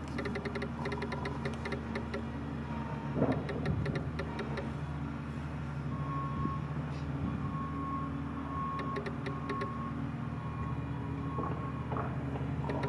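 Construction-site machinery engine running steadily, with a reversing alarm beeping at an even pace for several seconds midway. Runs of rapid clicking come twice over the hum.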